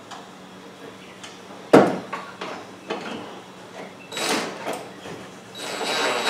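Hard plastic knocks and clicks of a car headlight housing being set onto its mounting pegs, with one sharp clunk a little under two seconds in, then short bursts of a cordless impact driver running, the last starting near the end.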